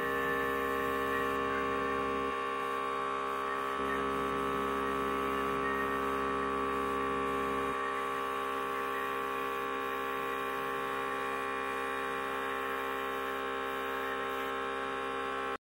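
Small airbrush compressor running with a steady, many-toned electric hum and a light hiss of air while the airbrush sprays; the deepest part of the hum drops a couple of times.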